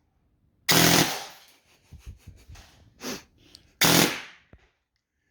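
Electric airsoft gun firing short full-auto bursts: two loud bursts of about half a second, about a second in and near four seconds in, with a shorter one between them. The bursts are a gearbox whir under rapid cracks.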